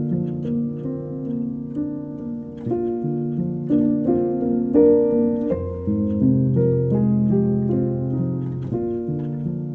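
Background music: gentle piano-led instrumental with plucked, harp-like notes, changing chords every second or so.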